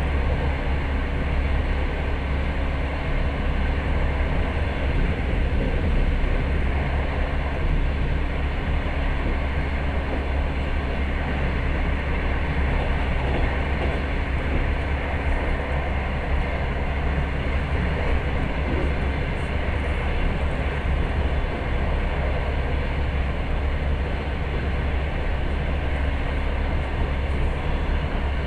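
Passenger train moving along the track, heard from inside the carriage: a steady running noise of wheels on rails with a strong low drone.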